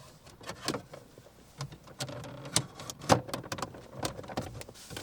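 A MINI R53 dashboard trim piece being pushed and worked into place by hand: a series of irregular clicks, taps and knocks, the loudest about three seconds in.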